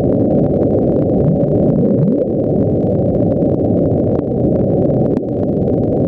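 The 'Bloop', a hydrophone recording of an extremely low underwater sound sped up 16 times: a loud, dense low rumble with a faint rising sweep about two seconds in. NOAA attributes the sound to an icequake.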